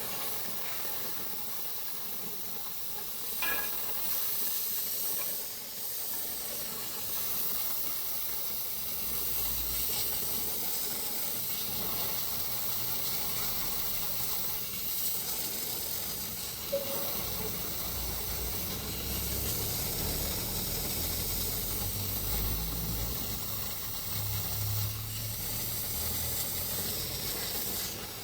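Metal lathe running with a steady hiss, joined by a low rumble that comes and goes from about ten seconds in.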